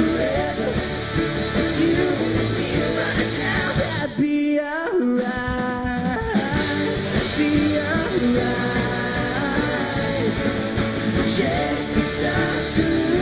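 Live pop-rock band playing, with electric guitars, piano, drums and singing. About four seconds in the band drops out briefly, leaving a single held note that steps down once, then the full band comes back in.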